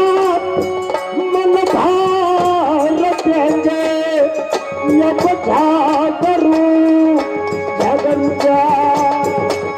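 Live Indian folk music: a melody in long held notes stepping up and down, over steady drum beats.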